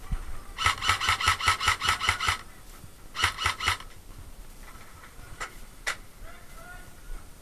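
Airsoft gun firing a rapid string of about ten shots at an even pace of roughly five a second, then a shorter string of four or five, followed by a few single faint clicks.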